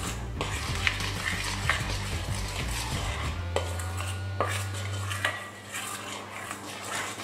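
A metal spoon stirring dry flour mix in a stainless steel mixing bowl, scraping and clinking against the bowl's side in repeated, irregular strokes.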